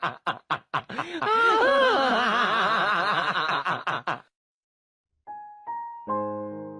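A man laughing in a rapid run of high, rising-and-falling giggles that stops abruptly after about four seconds. After a brief silence, a few keyboard notes sound, then a held chord near the end.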